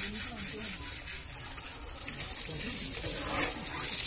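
Water from a garden hose spraying and splashing onto an elephant's body, a steady hiss that swells louder near the end.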